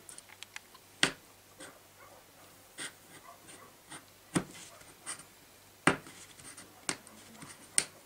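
A small knife cutting through plastic bottle caps to cut out their centre: faint scraping with about seven sharp, irregular clicks as the blade snaps through the plastic.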